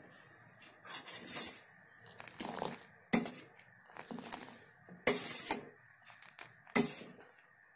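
Milk being scooped up with a steel ladle and poured back into a steel saucepan on the stove, several splashy pours with sharp metallic clinks of the ladle against the pan, mixing the milk and water as it heats.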